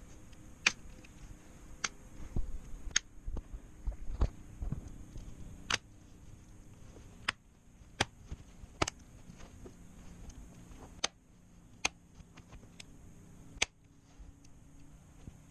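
Plastic retaining clips of a gaming laptop's bottom panel snapping into place as it is pressed down along its edge: about ten sharp clicks at irregular intervals, with low bumps from handling in the first few seconds.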